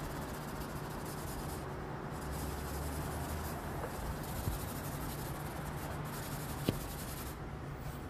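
Body filler on a car tailgate being hand-sanded with a sanding block: a steady scratchy rubbing. A low steady hum runs underneath, and there is one sharp click about two-thirds of the way through.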